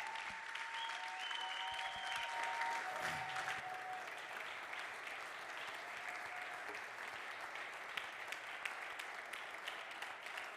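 Congregation applauding, a steady spread of hand claps, with a few long held tones over it in the first four seconds.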